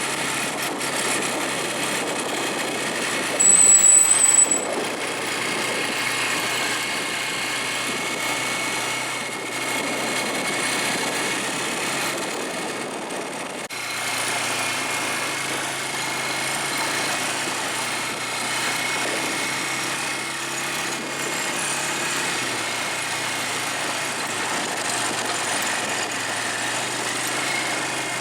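An ATV's small engine running steadily during a ride, with continuous rushing noise. A short, shrill high-pitched squeal about three and a half seconds in is the loudest moment.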